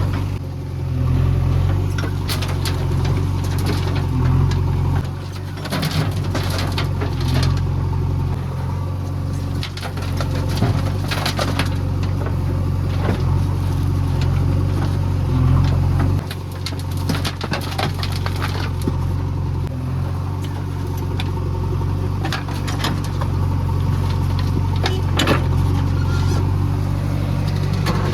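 Diesel engine of a JCB 3DX backhoe loader running under shifting load while digging and loading. Short sharp knocks and clatters sound again and again over the engine.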